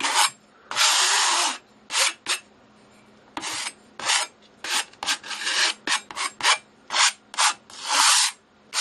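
Metal painting knife scraping over wet acrylic paint on a stretched canvas in a run of short, irregular strokes, about fifteen in all, with one longer scrape about a second in.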